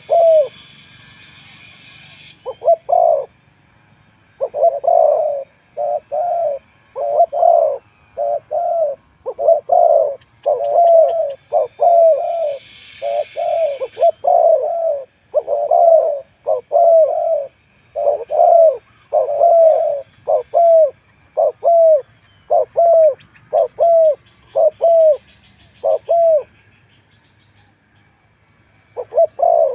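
Spotted dove cooing: a long run of low, repeated coo notes in short phrases, breaking off for a few seconds near the end. Faint chirps of other small birds are heard behind it.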